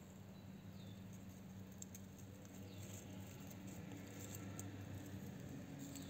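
A tortoise biting and chewing a ripe strawberry: faint, soft wet clicks and nibbles, several close together in the middle, over a low steady hum.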